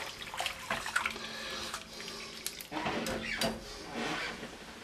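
Wire whisk stirring a creamy broth in a pot: liquid swishing and sloshing, with a few light clicks of the whisk against the pot. The flour is being whisked in to thicken the broth. The whisking stops near the end.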